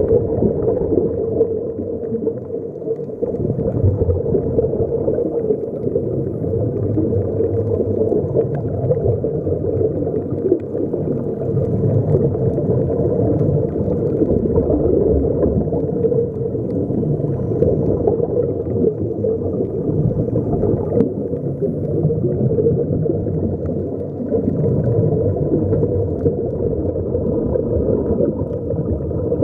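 Steady, muffled underwater noise picked up by a submerged camera, with a gurgling of air bubbles.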